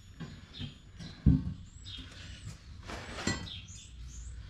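Two knocks of steel tools, a heavy thump about a second in and a lighter knock near three seconds, from a hammer and tire iron used to break a truck tire off its rim by hand. Small birds chirp high in the background.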